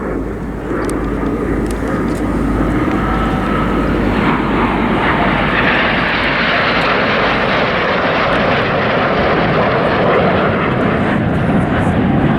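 Several BAE Hawk T1 jets' turbofan engines, heard as a formation flies past low: a broad jet rush that grows louder over the first few seconds and then holds loud.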